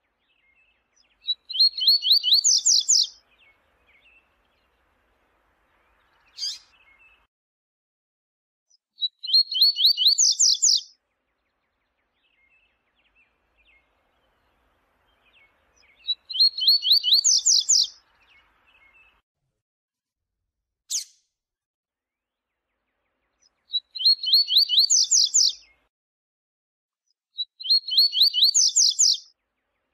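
Double-collared seedeater (coleiro) singing its 'viu-tiu' song: five phrases about two seconds each, every one a quick run of notes rising in pitch, with several seconds between them. Two short sharp sounds fall between the phrases.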